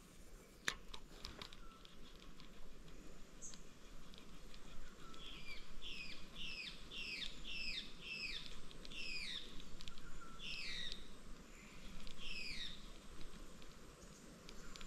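A bird calling: a run of about a dozen short notes, each sliding down in pitch, from about five seconds in until near the end. A sharp click comes just under a second in.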